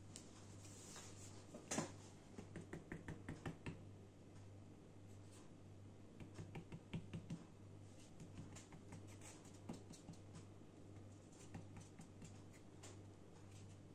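Light clicks and taps of a small plastic toy doll being handled and set down on the play mat: one sharper click about two seconds in, then two quick runs of light taps, over a faint low steady hum.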